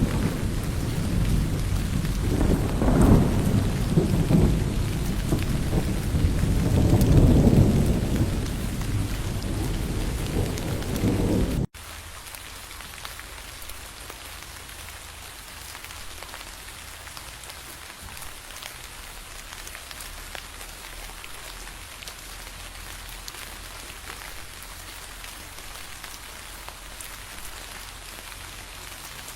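Heavy rain with thunder rumbling low underneath, swelling about three seconds in and again around seven seconds. About twelve seconds in the thunder cuts off abruptly, leaving steady rain with scattered drop ticks.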